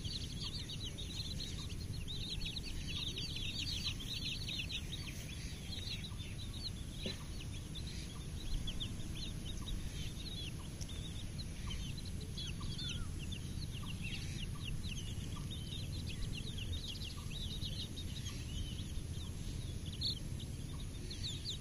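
A flock of baby chicks peeping: many short, high, falling chirps, thickest in the first few seconds and scattered after that, over a steady low background noise.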